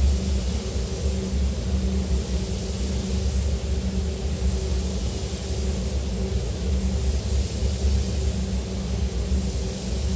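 Steady low rumble and hum of a spray booth's ventilation fans, with the hiss of compressed-air spray guns that swells and eases slightly as the guns spray a glass coating onto a car body.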